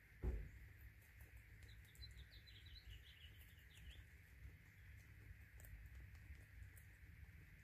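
Faint clicking of guinea pigs chewing food pellets, with a dull thump just after the start. A run of quick high chirps comes between about two and four seconds in.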